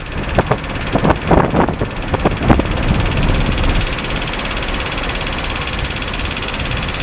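Car driving slowly, a steady engine and road rumble with a few sharp knocks in the first two and a half seconds, then even running.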